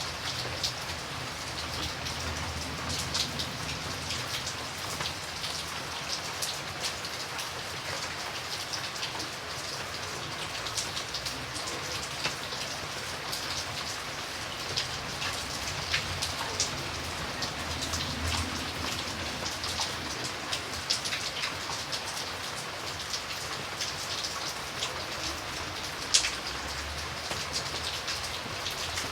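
Steady rain, an even hiss dotted with many separate drop ticks, with one sharper drop hit near the end.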